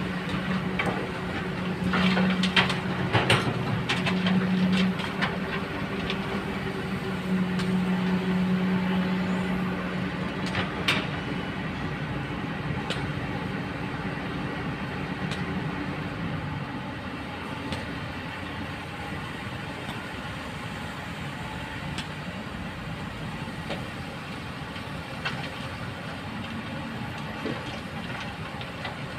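Hydraulic excavator's diesel engine running, louder for the first ten seconds or so and then settling lower. Sharp knocks come a couple of seconds in and again around eleven seconds.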